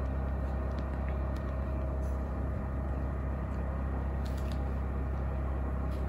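Denbig portable air conditioner running on its low setting, giving a steady hum with a low drone.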